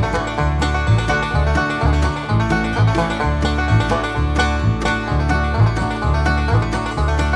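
Background music in a country or bluegrass style, with banjo-like plucked strings over a steady beat and a strong bass line.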